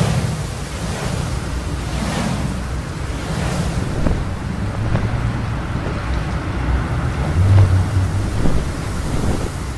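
Rushing wind sound effect over a deep rumble, with a few swelling whooshes in the first few seconds.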